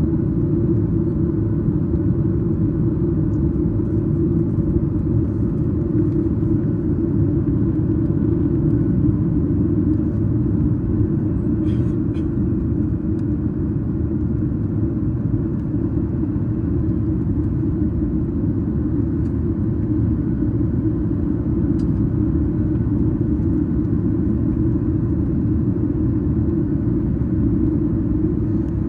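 Steady, loud cabin rumble of a Boeing 737-8 MAX, its CFM LEAP-1B engines running, heard from inside the passenger cabin. A few faint clicks come about twelve seconds in.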